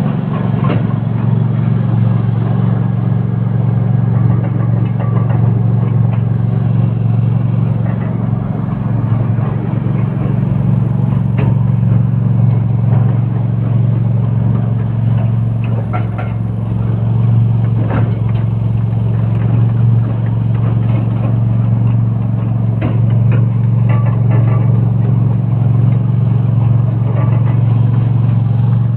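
A machine running steadily, a loud low drone with scattered light clicks over it.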